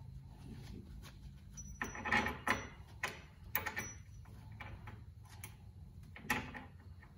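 Light metal clicks and knocks as a Wilwood brake caliper bracket is held against the steering knuckle and its mounting bolt is threaded in by hand. There is a cluster of clicks about two seconds in, a few more around four seconds and one sharper knock past six seconds, over a low steady hum.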